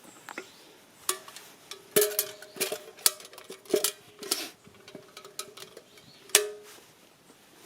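Metal cookware or utensils clinking together: about eight light, irregular knocks, each with a short ring, the loudest about two seconds in and near the end.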